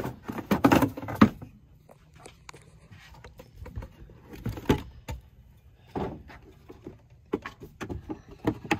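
Plastic clicks, knocks and rustles of a car airbox being worked by hand: the stock paper air filter is lifted out and a red high-flow drop-in filter is fitted in its place. The knocks come in short clusters, the loudest right at the start and a second after it.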